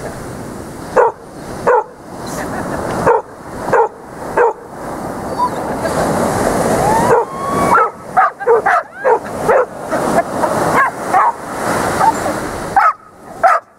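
A dog barking over surf washing in the shallows. The short, sharp barks come about once a second at first and then in quicker clusters in the second half, over a steady wash of breaking waves.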